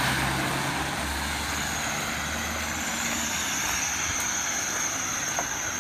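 A motor vehicle's engine running low under a steady hiss of street noise, with a thin high whine coming in about a second and a half in.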